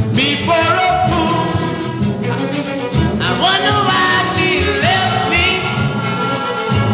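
Music: an oldies pop/R&B recording with bowed strings and a gliding, sung-sounding melody line over a steady backing.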